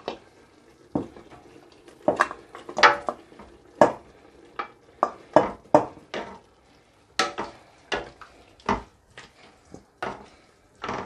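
Irregular sharp clinks and knocks, about one or two a second, of a metal bowl and utensils against a stainless steel cooking pot as pieces of cooked beef are tipped from the bowl into the pot.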